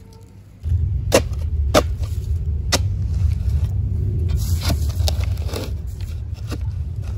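A metal shovel digging into soil and stones, with several sharp scraping knocks, over a loud steady low rumble that starts suddenly about half a second in.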